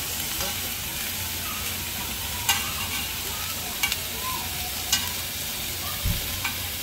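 Beef sizzling steadily on a hot round griddle plate, with a few sharp clicks of metal tongs against the plate as the pieces are moved, and a dull knock near the end.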